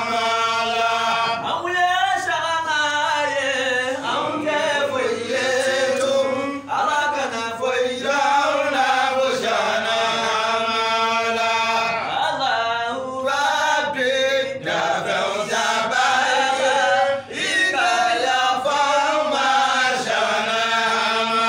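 Unaccompanied male voices chanting a devotional song together in long, held phrases.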